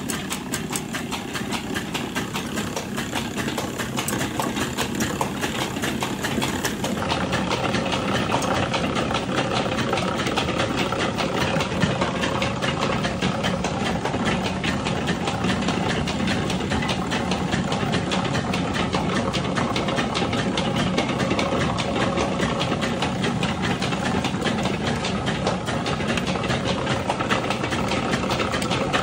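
Mustard-oil expeller machine running steadily as it presses mustard seed, a continuous mechanical drone with a fast, even rattle.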